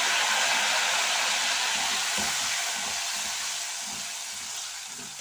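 Hot frying oil hissing and sizzling hard as a little salt water poured onto frying nendran banana slices boils up in it; the hiss is loud at first and gradually dies down. A slotted ladle stirs the slices in the pot during the second half.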